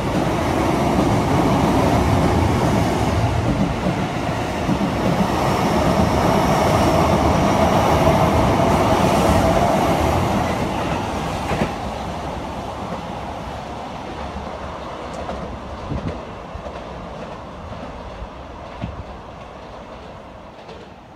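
Sotetsu 9000 series electric train running through a station at speed without stopping, with the steady noise of wheels on rail. It stays loud for about ten seconds, then fades away as the last cars pull clear.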